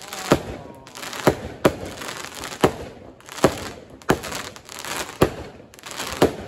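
Fireworks and firecrackers going off: a string of about nine sharp bangs at an uneven pace, with crackling in between.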